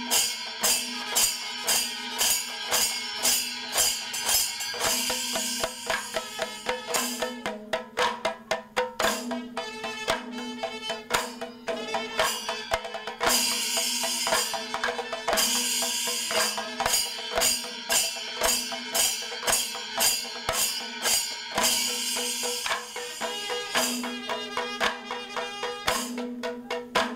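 Kerala temple percussion ensemble in the Panchavadyam style: many hand drums struck together over a steady clash of ilathalam cymbals. The rhythm grows denser partway through.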